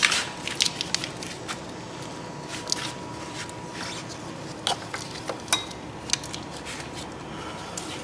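Plastic wiring harness connector and corrugated loom being worked loose by hand on an LS engine, giving scattered irregular clicks and rustles.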